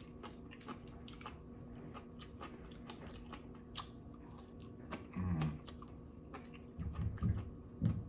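Close-miked chewing and biting of seaweed salad: many small, crisp, wet mouth clicks and light crunches, with a few louder low mouth sounds in the second half.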